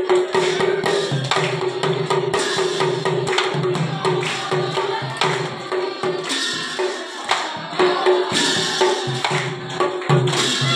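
Pairs of hand cymbals (taal) clashing in a steady rhythm over devotional dance music with held tones.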